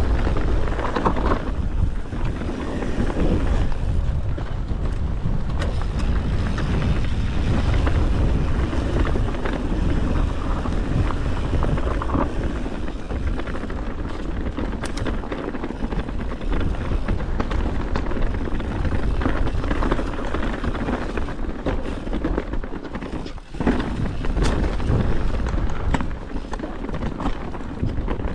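Wind rushing over the microphone while a mountain bike rolls along dry dirt singletrack, with tyre noise and scattered small clicks and rattles from the bike. The noise drops out briefly near the end.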